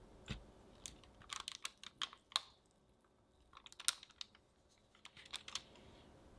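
Quick, sharp clicks and taps from a metal cookie stamp with a wooden handle being pressed and rocked into butter cookie dough on parchment paper, in three clusters.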